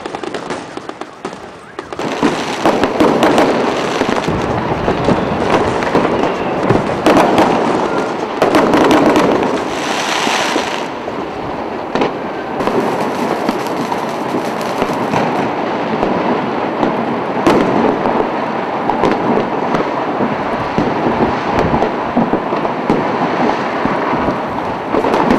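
Fireworks and firecrackers going off in a dense, continuous barrage of crackles and bangs, swelling sharply louder about two seconds in.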